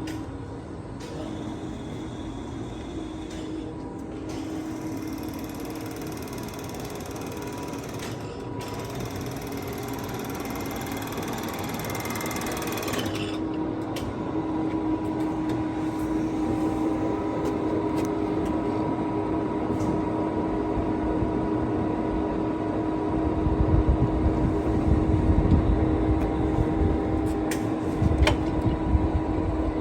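Poreba TPK90 engine lathe running, a steady mechanical hum with a steady whine from its headstock gearing. A heavier low rumble comes in about 23 seconds in and lasts several seconds.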